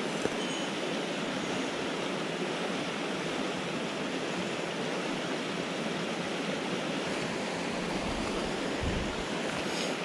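Mountain stream running over shallow rocky riffles: a steady rush of water. A low rumble comes in near the end.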